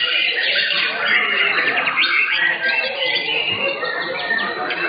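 White-rumped shamas (murai batu) singing competitively, several birds' songs overlapping in a dense, fast stream of whistles, trills and short chirping notes.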